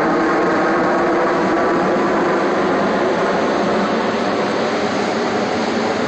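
Steady rushing roar of high surf breaking along the beach.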